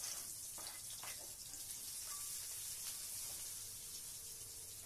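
Spice paste frying in hot oil in a wok, a steady high sizzle that eases slowly, with a few light knocks of the spatula against the wok near the start.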